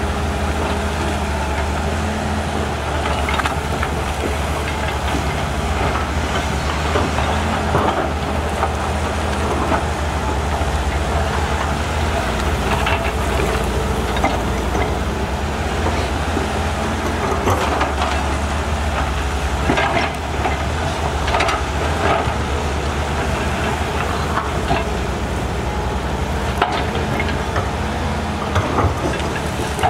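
Volvo EC210B LC excavator's diesel engine running steadily under working load, a constant low hum, with scattered clanks and knocks from the digging.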